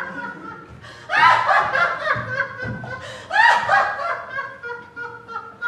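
A woman's loud stage laugh in repeated 'ha-ha' pulses. Two big bursts come about two seconds apart, each starting high and falling away into shorter, fading pulses.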